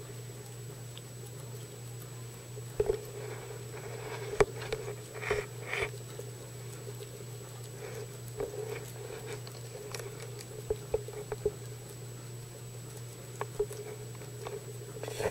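Guinea pigs chewing and crunching leafy greens, small irregular clicks and rustles scattered throughout, over a steady low hum.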